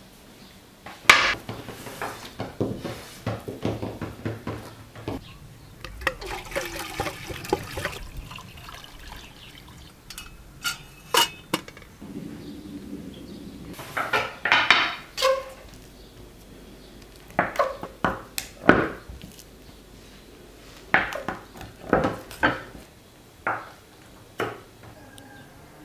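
Hand work with pastry dough on a table top: scattered taps and knocks and a couple of brief rubbing, scraping spells, then a run of sharp knife strikes on the board as a roll of layered qoğal dough is sliced into pieces.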